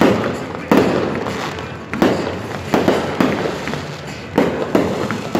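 Aerial fireworks bursting, a string of loud bangs each followed by a fading rumble and crackle, about one or two a second.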